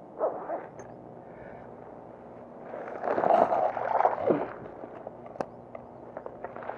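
Rustling of tall grass and handling noise close to the microphone: a brief rustle at the start, a louder scuffle lasting a second or two about three seconds in, then a few light clicks.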